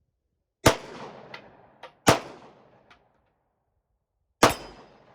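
Three gunshots, each with a ringing echo tail, the second about a second and a half after the first and the third about two seconds later; a few faint clicks fall between them.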